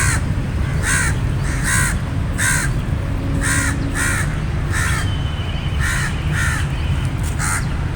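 A corvid cawing: a long run of harsh caws, roughly one or two a second, over a steady low rumble.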